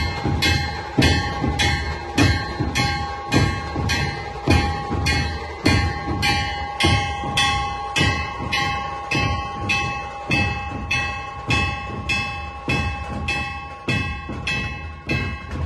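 Procession barrel drums (dhol) beaten in a steady rhythm, about two strokes a second, with metallic clanging ringing over each beat.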